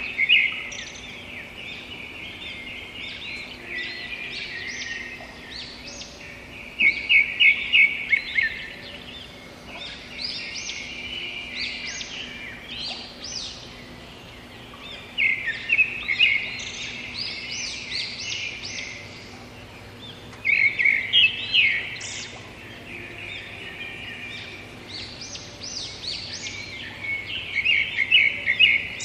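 Small songbirds chirping: bursts of quick, high chirps every few seconds, over a faint steady hum.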